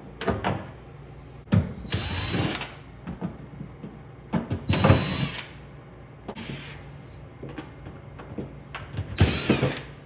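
Cordless drill-driver backing out Robertson screws from the refrigerator's inner panel: three short bursts of the motor spinning, with light clicks and handling noise between them.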